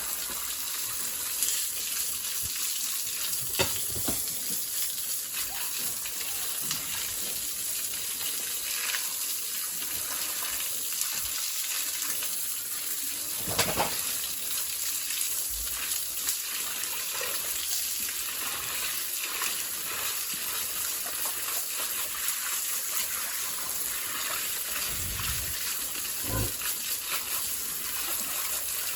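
Water spraying steadily from a hose in a pig pen, a continuous hiss, with a couple of short knocks.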